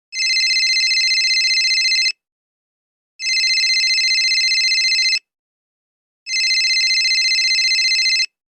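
Telephone ringing: three rings of about two seconds each, about a second apart, each with a fast trilling ripple.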